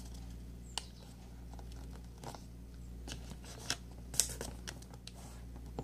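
Colored paper being folded and creased by hand into a paper airplane: a string of short, crisp paper rustles and crinkles, irregularly spaced, over a faint steady low hum.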